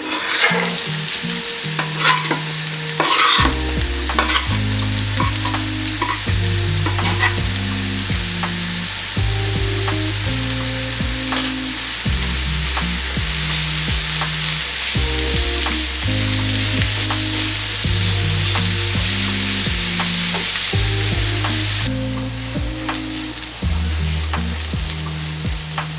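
Food sizzling as it fries in oil in a pan, stirred with a spatula that clicks and scrapes against the pan, with one sharper knock about eleven seconds in. The sizzle eases near the end, over background music with a low, stepping bass line.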